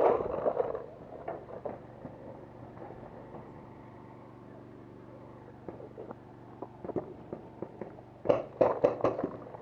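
Paintball markers firing: scattered single pops through the quieter middle, then a fast string of shots a little over eight seconds in.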